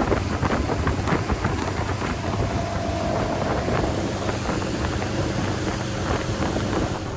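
Motorboat running steadily under way, with wind rushing over the microphone.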